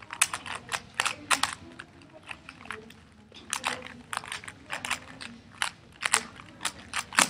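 Two 3x3 Rubik's cubes being speed-solved: quick, irregular plastic clicking and clacking as the layers turn, coming in runs of several turns with short gaps between.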